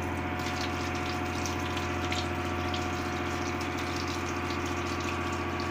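Tap water running and splashing into a stainless steel sink as crabs are rinsed under it by hand, over a steady low machinery hum.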